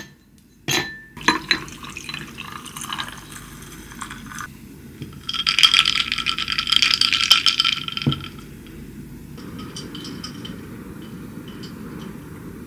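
Ice cubes dropped one by one into a tall drinking glass, clinking against the glass and each other, followed by a dark drink poured over the ice for about three seconds, the loudest part. A fainter steady background noise with light ticks follows.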